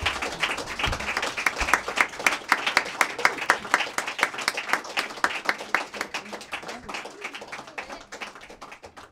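Small audience applauding, the individual claps thinning and fading away to near nothing by the end.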